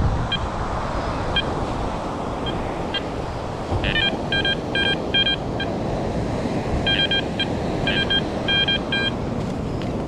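Garrett Ace Apex metal detector sounding short repeated target beeps as its coil sweeps over a buried metal object, with a few single beeps at first and then quick clusters of beeps around the middle and again near the end. A steady rush of wind and surf runs underneath.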